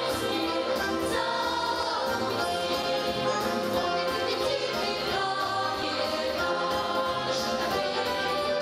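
A song playing: singing voices over a full instrumental accompaniment, at an even level throughout.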